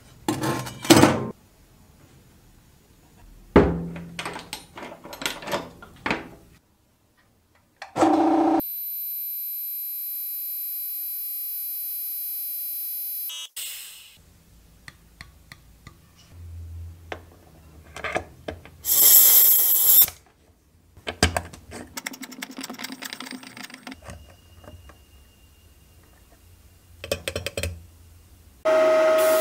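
Sandblasting setup with compressed-air gear: knocks and clunks as the pan and blast gun are handled in the blasting cabinet, a steady whine-like tone for about five seconds in the middle, and short loud bursts of noise, the last one starting just at the end.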